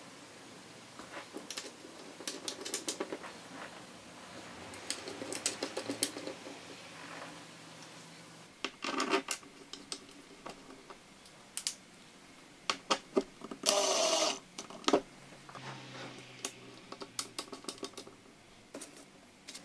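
A small hand tool scratching and scraping paint along the edge of a clear painted panel: irregular clicks and short scrapes, with a longer, louder rasp about 14 seconds in.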